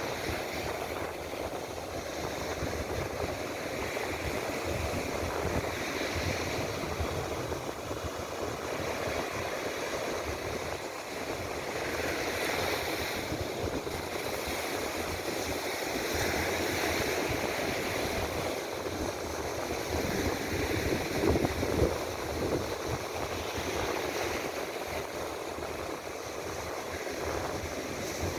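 Sea surf surging in and water rushing through the mouth of a brackish tidal canal where it meets the sea. It is a steady rush that swells every few seconds as waves come in, loudest about three quarters of the way through.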